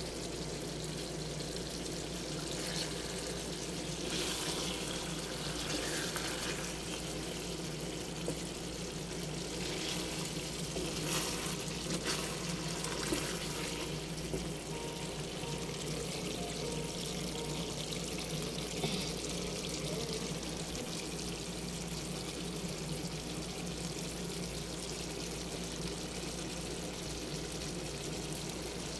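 Chicken adobo simmering in an aluminium pan, a steady bubbling hiss of the sauce over a low hum, with a few scrapes of a wooden spatula against the pan a few seconds in and again around eleven to thirteen seconds in.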